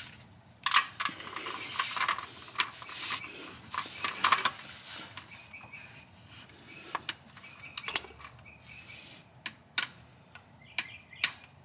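Irregular metallic clicks and clinks of a 19 mm socket on a digital torque wrench being fitted to a steel oil drain valve and worked to tighten it to 15 ft-lb.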